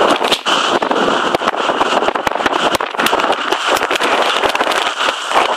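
Strong blizzard wind buffeting the microphone: a loud, dense rush broken by many short crackling pops.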